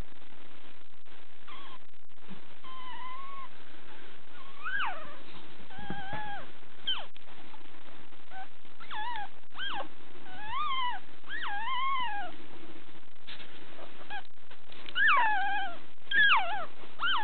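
Newborn puppy crying in a series of short, high squeals, each rising and then falling in pitch, the loudest ones near the end: a three-day-old puppy crying for its mother.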